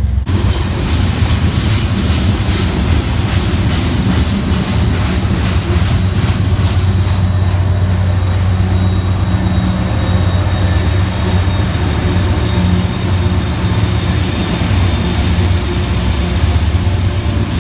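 Freight train passing close by: wheels clicking over the rail joints, over a steady low drone from Union Pacific diesel-electric locomotives rolling past under power.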